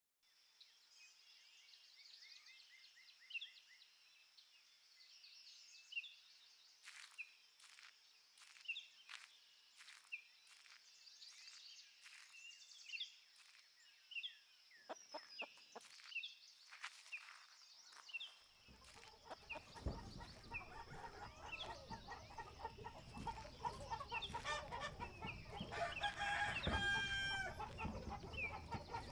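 Faint farmyard sound effects: a steady high-pitched tone with scattered bird chirps and clicks, then about two-thirds of the way in a fuller farmyard layer comes in, with hens clucking and a rooster crowing near the end.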